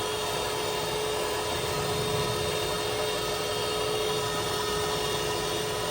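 Miller Multimatic welder's wire-feed motor running at a steady pitch with the trigger held, driving flux-core wire through the drive rolls and out of the gun.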